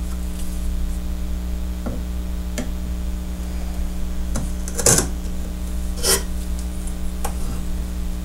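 A handful of short, sharp clicks and crunches as a chisel is pressed down through a wooden guitar binding strip, the loudest about five seconds in and another about a second later, over a steady mains hum.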